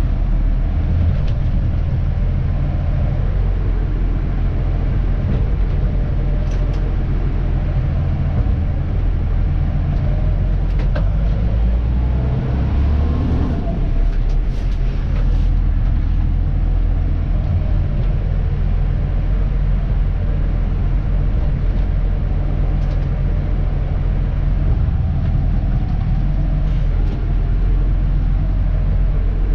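Dennis Elite 2 garbage truck's diesel engine running while driving, heard from inside the cab: a steady low rumble whose pitch rises and falls a few times, around the middle and again near the end, with a few faint clicks.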